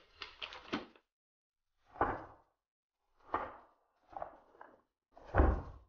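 Swishes and thuds of a katana cutting through rolled tatami mats: a quick cluster of sharp hits in the first second, then single cuts about a second apart, the loudest near the end.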